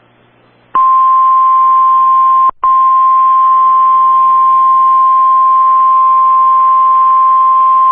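Weather alert attention tone: a single loud, steady high tone starting about a second in, breaking off for an instant at about two and a half seconds and then holding on. It is the alarm that signals a new National Weather Service warning is about to be read.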